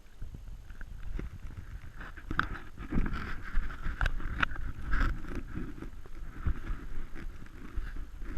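Kayak paddling: water splashing and dripping off the paddle, with sharp little clicks and knocks, over a low rumble on the camera's microphone.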